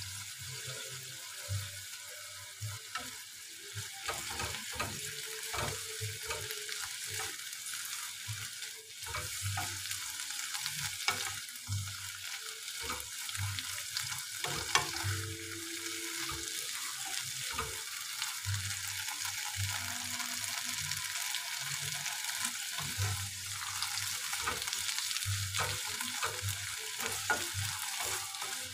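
Spinach, onion and garlic sizzling in a nonstick frying pan, with a wooden spatula stirring and knocking against the pan again and again.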